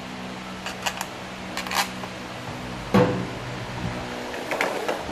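Metal tools and parts being handled on a stainless steel workbench: a few light clicks and a brief scrape, one sharp ringing metal knock about three seconds in, then a cluster of smaller clinks near the end, over a steady workshop hum.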